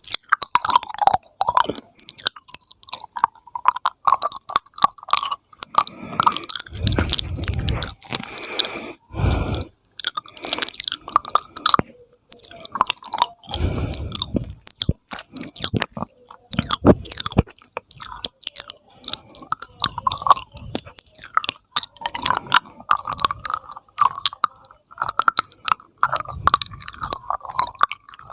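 Close-miked ASMR mouth sounds: a dense, irregular stream of wet clicks, pops and smacks, with a few louder, fuller bursts now and then.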